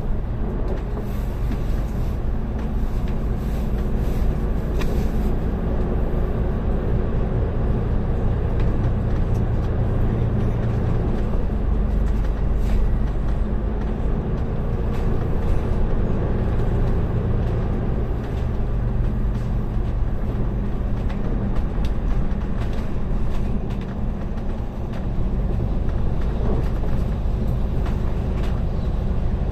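Moving bus heard from inside the cabin: a steady low engine drone under continuous road and tyre noise as it drives through a road tunnel.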